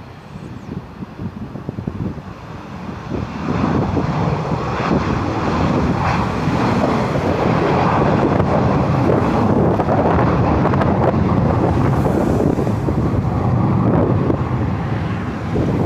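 Boeing 737 jet engines at takeoff power: a loud rushing noise that swells about three seconds in and then holds, with wind buffeting the microphone.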